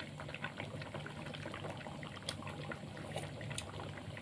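Young jackfruit curry in coconut-milk broth simmering in a pot, bubbling with many small pops over a steady low hum.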